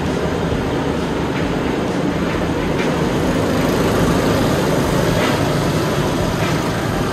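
Several rental go-kart engines running as a pack of karts drives past on the track, the noise swelling about four seconds in as they go by.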